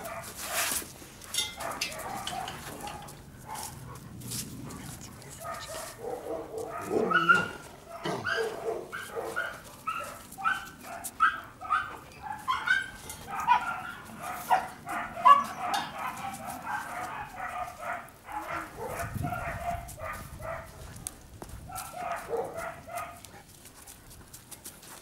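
Young Caucasian Shepherd dogs whining and yipping, short high calls coming several a second and thinning out near the end.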